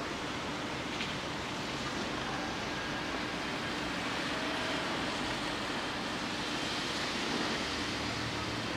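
Steady rain falling, an even hiss, over a faint steady low hum of city and rail traffic.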